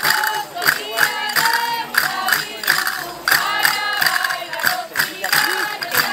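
A chorus of women singing a folk dance song over steady beats of panderetas (frame drums with jingles), about three strokes a second.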